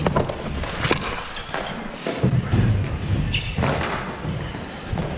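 Floor hockey in play on a hardwood gym floor: scattered sharp clacks of sticks and the plastic ball striking the floor and each other, with a few heavier dull thuds about two seconds in.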